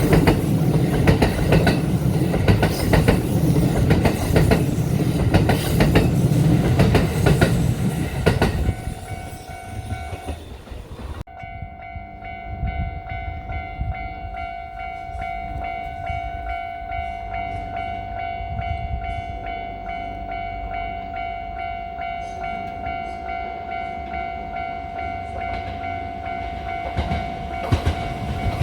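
Kintetsu electric train passing over a level crossing, its wheels clacking over rail joints, with the crossing's warning bell sounding a steady ringing tone. The train noise dies away after about eight seconds, and the crossing bell rings on alone until another train draws near at the end.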